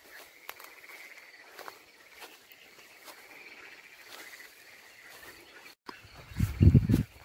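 A faint, steady chorus of small animals calling outdoors, wavering around one pitch, with a few light crackles. Near the end a loud, low rumble of buffeting on the phone's microphone.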